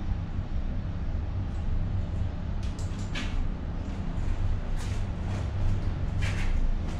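A steady low hum, with several short hissing noises now and then, about six over the few seconds.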